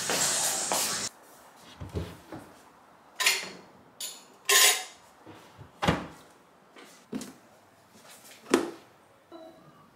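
Household handling sounds of a plastic storage box and a cabinet: a rushing scrape or rustle for about the first second, then a series of separate plastic knocks and clacks at uneven intervals as things are set down, opened and closed.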